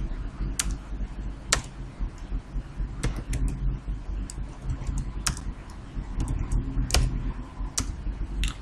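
Typing on a computer keyboard: separate, unhurried keystrokes at an uneven pace of about one a second, over a low steady hum.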